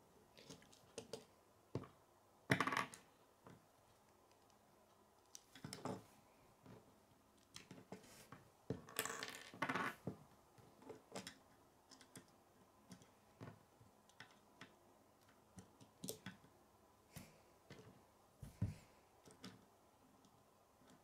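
K'nex plastic pieces and wheels being handled, clicked together and set down on a wooden table: scattered small clicks and knocks, the loudest about two and a half seconds in, and a longer scrape around nine seconds.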